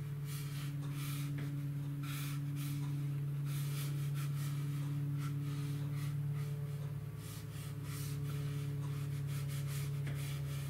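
A series of short watercolour brush strokes, the bristle tip scratching and rubbing over rough watercolour paper at an irregular pace, over a steady low electrical hum that is the loudest sound throughout.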